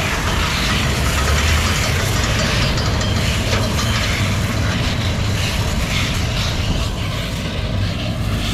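Tractor-drawn Krone Combi Pack 1500 baler-wrapper working, heard close up: a steady, loud mechanical running of the machine and the tractor engine.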